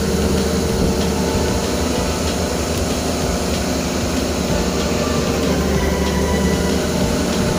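Long-reach excavator's diesel engine running steadily, heard from inside the operator's cab: a constant low drone with a few faint held tones above it.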